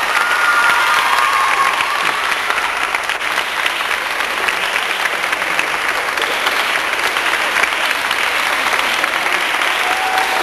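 A group of people applauding: many hands clapping steadily together.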